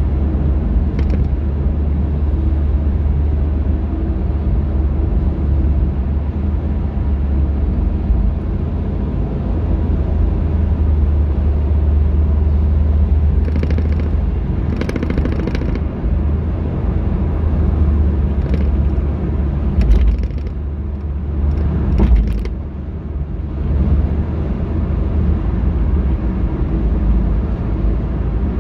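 Road and engine noise of a moving car heard from inside the cabin: a steady low rumble, with several short clicks and knocks, most of them in the middle stretch.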